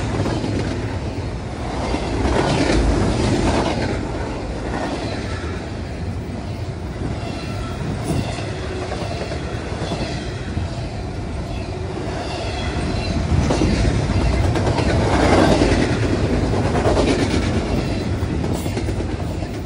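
Double-stack intermodal container well cars rolling past at speed: a steady rumble and clatter of steel wheels on the rails, swelling and easing as each car goes by. It begins to fade near the end as the tail of the train passes.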